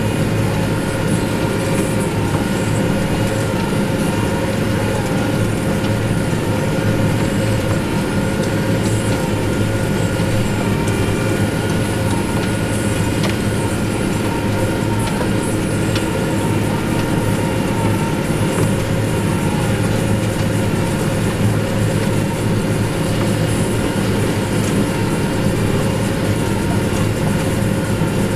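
New Holland T7060 tractor engine running steadily under load while working a New Holland BB930A large square baler.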